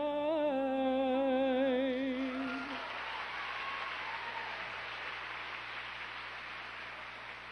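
A man's voice holding a long sung note with vibrato in a gospel quartet song, ending about two and a half seconds in. Audience applause rises over it and fades away.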